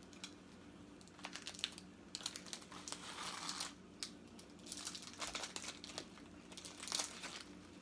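Foil wrapper of a chocolate-covered snack cake crinkling as it is peeled open by hand, in several short bouts of crackling.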